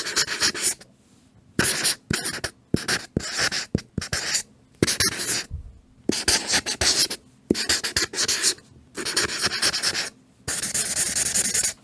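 Felt-tip marker pen writing on paper: a run of squeaky, hissing strokes, each lasting from a fraction of a second to about a second, with short pauses between them and light taps as the tip touches down.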